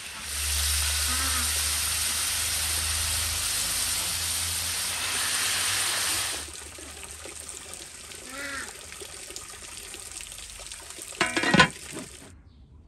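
Raw meat chunks sizzling in hot fat in a large aluminium pot, a loud steady hiss that drops away about six seconds in. A brief loud knock comes near the end.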